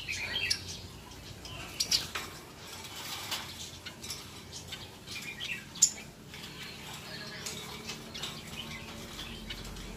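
A pair of captive red-headed babblers fluttering and hopping in a wire cage, wings flapping against the bars, with short chirps and a few sharp clicks against the cage, the loudest about two and six seconds in.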